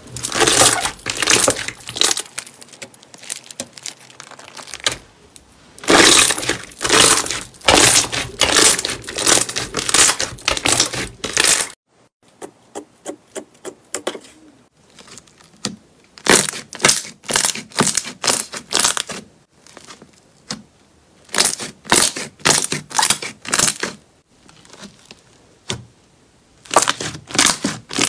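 Hands pressing and stretching glossy slime, a dense run of crackles and pops as trapped air squeezes out. About twelve seconds in this stops abruptly; then fingers press into a red slime, giving groups of short crackly clicks with pauses between, and the crackling picks up again near the end.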